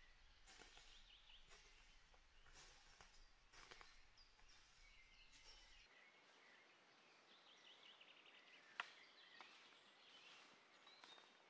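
Faint forest ambience. Footsteps crunch through dry fallen leaves about once a second in the first half, and small birds chirp and trill throughout. A single sharp click comes a little past the middle.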